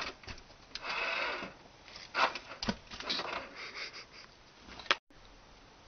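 Plastic dolls and a plastic toy car being handled: scattered light clicks, knocks and rustling as the dolls are lifted out of the car.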